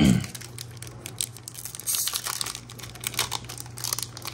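Crinkling and rustling of a foil trading-card booster pack and cards being handled, in short irregular crackles, over a low steady hum.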